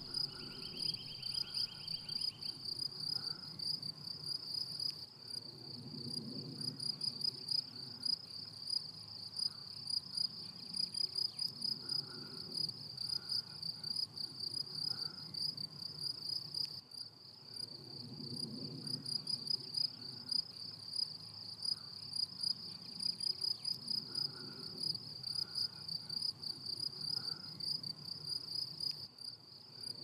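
Crickets chirring steadily in a meadow, a continuous high, finely pulsing trill. Fainter low sounds swell and fade in the background every second or two.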